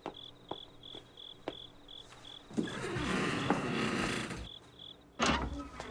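Crickets chirping steadily, about three chirps a second, with faint regular ticks. About halfway through, a louder rustling scrape lasts nearly two seconds as the glass double doors are pulled shut, and a sharp knock comes near the end.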